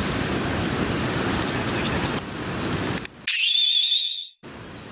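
A loud, steady rushing noise, such as wind buffeting the microphone or air blown at the fire. About three seconds in it cuts out abruptly, and a clean, high whistle-like tone sounds for about a second over silence, an edited-in sound effect.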